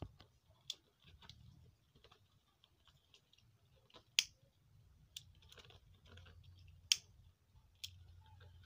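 Hands working a seam of woven plastic matting: faint rustles and scratches with about five sharp clicks a second or more apart, the loudest about four and seven seconds in.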